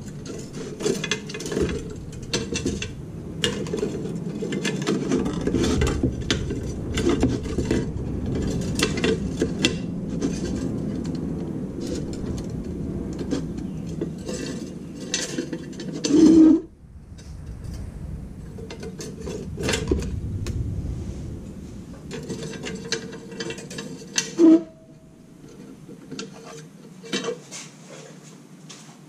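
Thin nichrome wire being threaded and tied onto an icemaker's metal ice-cutter grid: continuous rubbing and scraping with many small metallic clicks and rattles. Two sharper knocks come past the middle and later on, and the handling grows quieter near the end.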